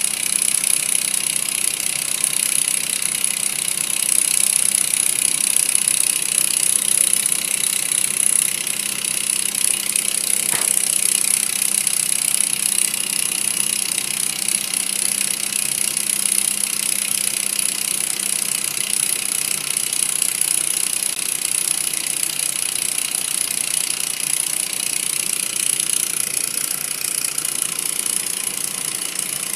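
Small model hot-air Stirling engine running steadily, a continuous mechanical whirr from its piston, linkage and flywheel. A single sharp click about a third of the way in.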